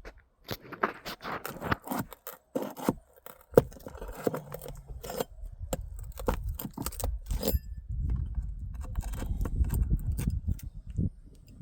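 Metal tool scraping and clicking against asphalt shingles and roofing nails as nails are pried out of an old, brittle roof, followed after about seven seconds by a steady low rumble.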